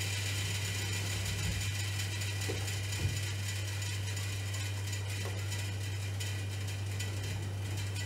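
Gas water heater running: a steady hum with a hiss above it, and a single light click about three seconds in.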